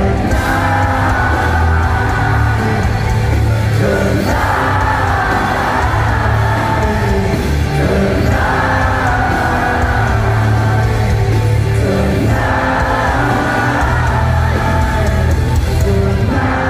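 Loud live concert music with singing over a heavy, steady bass, the music moving in phrases about every four seconds.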